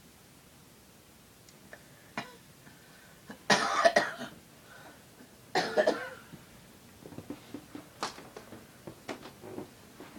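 An elderly woman snoring in her sleep: two loud, rough snores about two seconds apart, then several small clicks and breathing noises.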